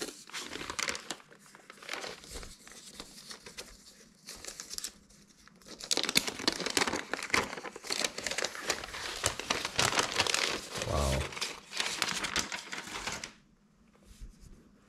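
Packaging wrap around a new laptop crinkling and tearing as it is pulled off by hand, in a dense irregular crackle that grows louder about halfway through and stops shortly before the end.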